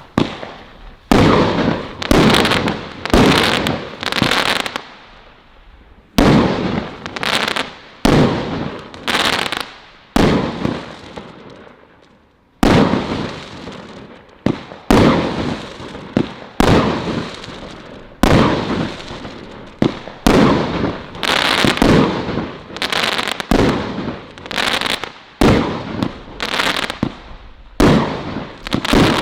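"Colour Crackles" Category 3 garden firework going off: a long run of shots about one every half second to second, each bang fading out in a crackling tail. It pauses briefly twice, then keeps firing.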